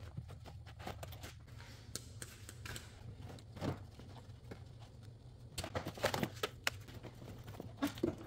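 Faint rustling of van floor carpet being lifted and handled, with scattered clicks and taps from small plastic and metal parts and a few louder taps about four and six seconds in, over a low steady hum.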